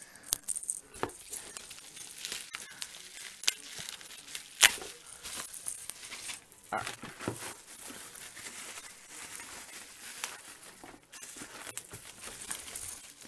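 Bubble wrap and packing paper crinkling and rustling as a bubble-wrapped figure box is handled inside a cardboard shipping box. Irregular small clicks run through it, with one sharp loud click about four and a half seconds in.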